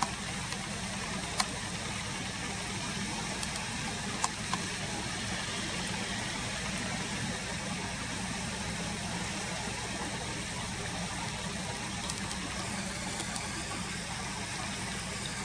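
Car engine idling steadily, heard from inside the car, with a few brief sharp clicks.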